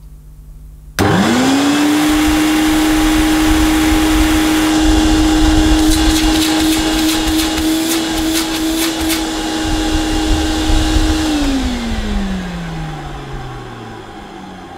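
Hoover Celebrity canister vacuum cleaner motor switched on at low speed about a second in. It spins straight up to a steady hum and whine, with a run of sharp clicks in the middle. About eleven seconds in it is switched off and winds down in a steadily falling tone. The owner allows that some might call the motor's sound dry.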